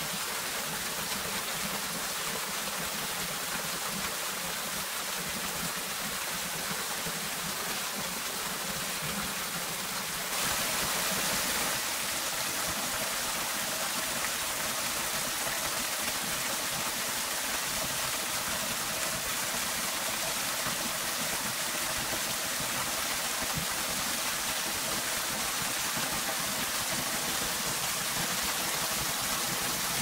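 Small waterfall: thin strands of water falling down a rock face and splashing onto rocks and a shallow pool, a steady rushing hiss that grows a little louder about a third of the way through.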